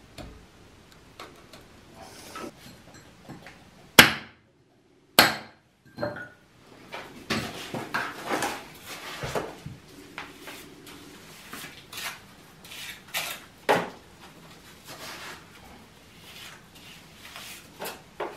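Hand work on masonry: irregular scraping, knocking and clattering of hard brick and plaster pieces, handled and dropped into a plastic bucket. Two sharp knocks stand out about four and five seconds in.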